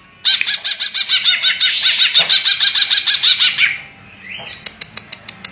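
Green leafbird (cucak ijo) singing a fast run of repeated, arching chirping notes for about three and a half seconds, then a series of sharp clicks near the end.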